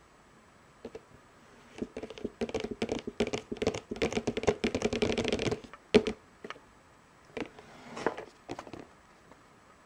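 Hands gripping and turning a cardboard camera box: a dense run of small taps and clicks lasting a few seconds, a sharper click about six seconds in, then scattered taps.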